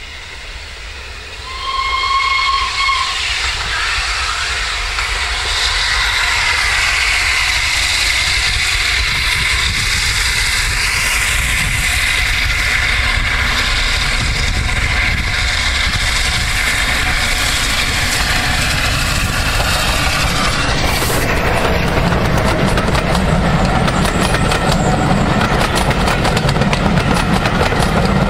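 Steam locomotive 60163 Tornado, a three-cylinder Peppercorn A1 Pacific, sounds one whistle blast about two seconds in, then approaches and passes under steam with a growing hiss and exhaust noise. Near the end its coaches run by with a rattle and clatter of wheels on the track.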